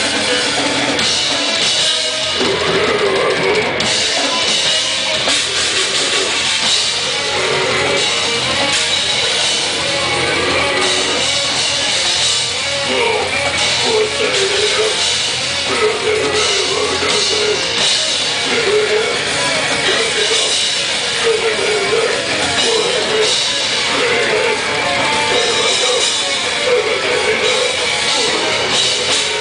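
Live technical death metal played loud: fast drum kit and distorted electric guitars, with growled vocals over them.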